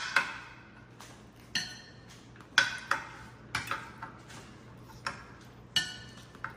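Metal cutlery clinking and tapping against plates and dishes as food is served: about nine sharp, irregular clinks, some ringing briefly.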